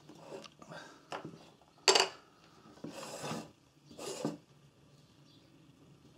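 A plastic Honda GX-series recoil starter being handled on a wooden bench: a sharp knock about two seconds in, then two short scraping rubs and a few small clicks.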